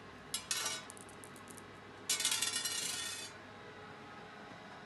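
Two small dice clattering on a glass tabletop: a few sharp clicks and quick bounces in the first second and a half, then a denser rattle lasting about a second from about two seconds in. These are magnetic rigged dice rolled with the magnet off, so they land at random.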